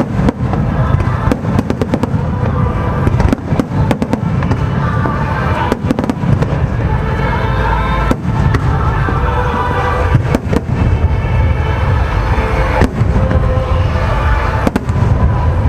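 Fireworks display: many sharp bangs of shells bursting in quick succession over a continuous low rumble, with music playing underneath.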